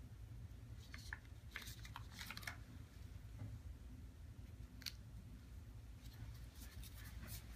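Faint crinkling and clicking of an adhesive ECG electrode pad being handled and pressed onto the skin by a gloved hand, a cluster of crackles about a second in and a few single clicks later, over a low steady hum.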